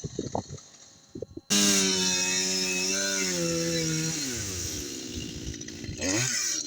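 Chainsaw cutting wood. It comes in abruptly about a second and a half in, its pitch sagging as the chain bites into the cut, then dropping lower and swinging up and down again near the end. A few scattered knocks come before it.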